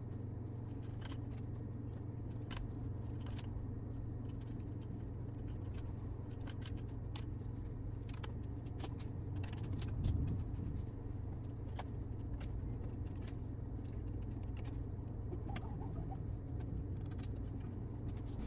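Scattered small plastic clicks and snaps as 3D-printed backing pieces are pressed onto the inside of a plastic cable drag chain's links, over a steady low hum.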